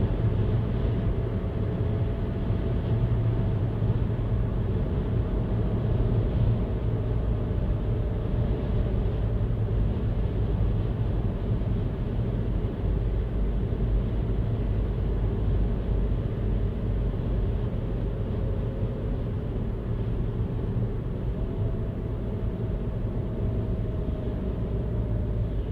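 Car driving along a road: a steady low rumble of engine and tyre noise, with a faint tone that slowly drifts in pitch.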